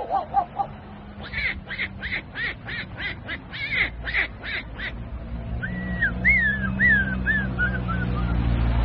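A man imitating a duck with his voice: a rapid run of about ten short quacks, then a string of short, high chirping calls.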